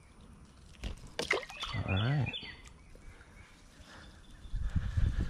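A low, distant thunder rumble builds near the end, over outdoor creek ambience. Before it there are a few sharp knocks from the kayak and gear, and a short hum from a person about two seconds in.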